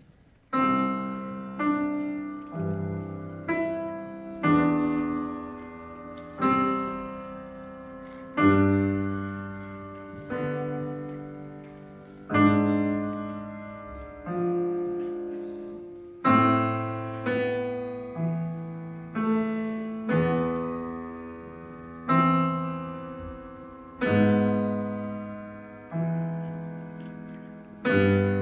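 Grand piano played slowly, its notes and chords struck about every one to two seconds, each one ringing and fading before the next. The playing starts about half a second in.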